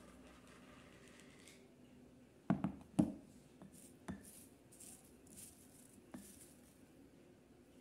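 A glass bowl set down on a hard table-top with two knocks. Then a wooden spoon scrapes into dried lavender, with a few light taps and a dry rustle of the herb.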